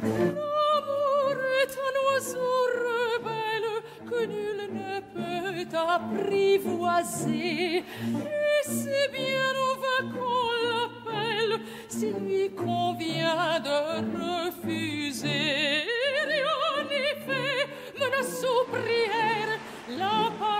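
Trailer music: a solo voice singing long notes with wide vibrato over low, steady accompanying notes.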